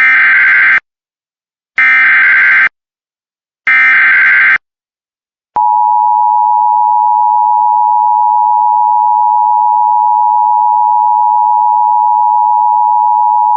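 Emergency Alert System SAME header: three short bursts of warbling digital data tones, each under a second long and about a second apart. About a second later the steady EAS two-tone attention signal starts and holds for about eight seconds. The tones mark the start of an emergency alert broadcast, here a severe thunderstorm warning.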